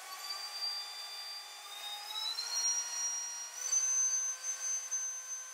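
Bosch GRO 12V-35 cordless rotary tool running free with a high whine that steps up in pitch about three times as its speed dial is turned up.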